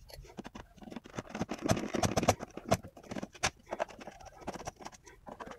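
Hands handling a plastic computer keyboard and tools on a workbench: a run of irregular clicks, taps and rustles, busiest about two seconds in, with a few sharper knocks a little after that.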